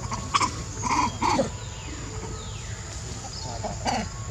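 A few short animal calls over steady outdoor background noise: two close together about a second in, and another near the end.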